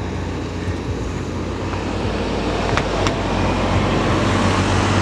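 A vehicle engine's steady low hum under a rushing noise, slowly growing louder, with two short sharp clicks about three seconds in.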